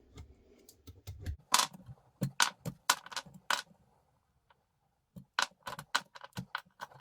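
Small metal deselection pins of a Renz AP360 punch tool clicking and clinking as they are pulled out of the tool and put down: two runs of quick light metallic clicks with a short pause between them.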